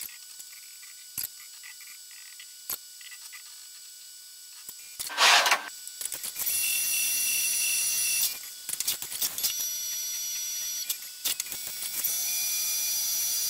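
Tormach 1100MX CNC mill at work: a few light clicks, a short loud hiss about five seconds in, then a steady high whine running in stretches of two to three seconds that stop and start again.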